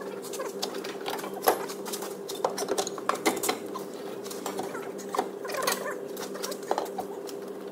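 Irregular metal clunks, knocks and scrapes as a Citroen C4's gearbox is wiggled free of the engine casting and lowered out from under the car, over a steady background hum.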